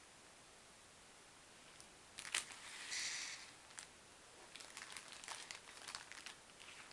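Thin clear plastic bags crinkling as they are handled: quiet at first, then a sharp crackle about two seconds in, a brief rustle, and scattered small crackles after.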